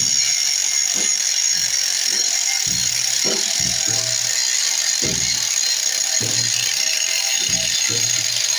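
Angle grinder cutting metal: a loud, steady high-pitched whine with hiss, running without a break.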